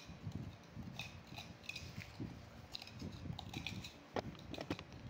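A spoon stirring a thick cocoa mixture in a mug, scraping and clicking against the inside in small irregular strokes.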